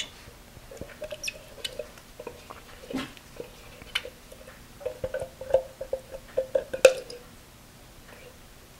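Red spatula scraping condensed tomato soup out of a tin can: faint, irregular scrapes and small taps, with squeaky stretches about a second in and again from about five to seven seconds in.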